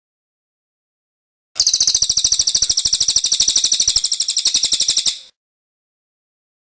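A songbird's rapid, high chattering trill of evenly repeated notes, lasting about three and a half seconds, starting and stopping abruptly with dead silence before and after.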